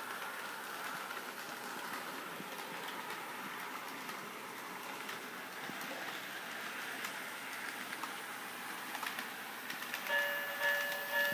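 N scale freight train running on Kato Unitrack: a steady light rolling rattle of small wheels on track, with faint clicks at the rail joints. Near the end a grade-crossing signal's electronic bell starts, a pulsing ding-ding of steady tones.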